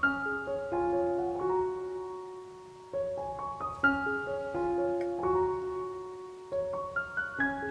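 Background piano music: a light melody of separate notes in short phrases, a new phrase starting about every three and a half seconds.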